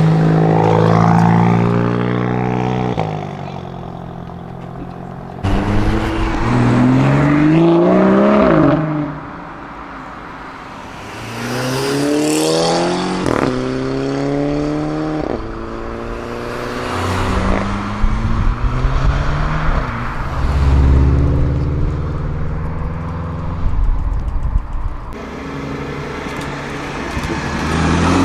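Tuned sports cars, among them Volkswagen Golf GTIs, accelerating away one after another: each engine note climbs with the revs and drops back at the gear changes. There is a single sharp crack about halfway through.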